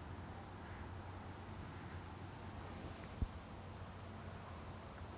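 Faint outdoor background of insects trilling steadily, with short high chirps now and then and a low hum beneath. A single soft low thump comes about three seconds in.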